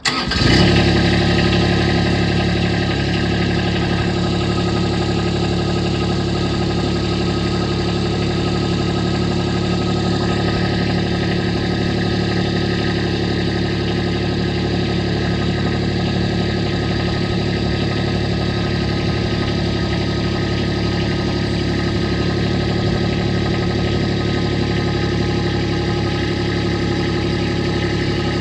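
John Deere D140 lawn tractor's V-twin engine running steadily at a constant speed after being revived from four years of sitting.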